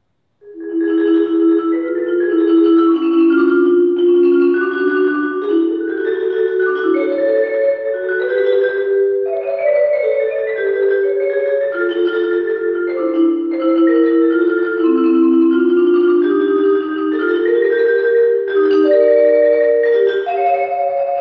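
Marimba played with two mallets: a continuous flowing line of overlapping notes in the instrument's middle register, beginning about half a second in.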